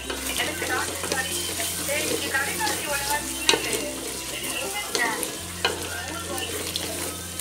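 Onion and tomato masala frying in oil in an aluminium pot, sizzling steadily, while a wooden spatula stirs it and scrapes the pot, with a sharp click from the spatula every so often.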